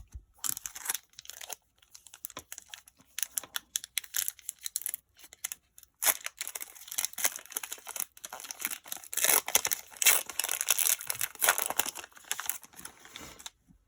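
Pokémon booster pack's foil wrapper being torn open and crinkled, an irregular run of crackling with a few short pauses that stops just before the end.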